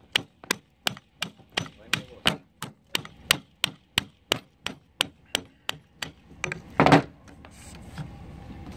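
Hammer tapping repeatedly on the metal handle housing of a Greenlee hydraulic pole saw, about three blows a second, to knock the handle section apart. About seven seconds in there is one louder, longer clank.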